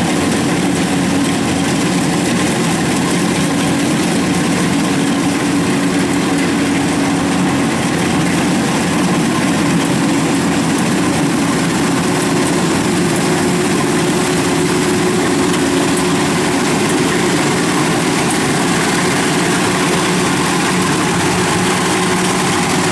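An engine running steadily at a constant speed, with an even hum and no change in pace.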